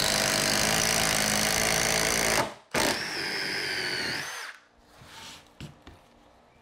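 Milwaukee M18 Fuel impact driver driving a 1/2-inch spade bit through a 4x4 at full speed; the loud run cuts off suddenly about two and a half seconds in as the bit breaks through. After a short pause it runs again, quieter, for about a second and a half as the bit is backed out of the hole, its whine rising just before it stops.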